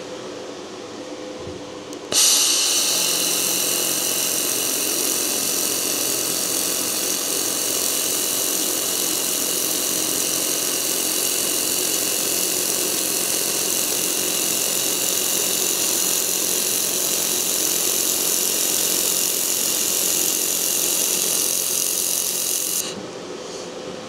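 xTool MetalFab 1200-watt laser welder running one continuous weld bead on a steel car panel: a steady hiss with several high whining tones that starts suddenly about two seconds in and cuts off near the end.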